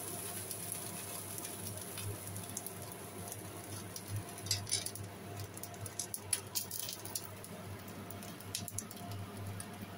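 Oil crackling faintly in a hot nonstick frying pan holding leftover fish pieces, with a cluster of sharp pops and clicks around the middle, over a steady low hum.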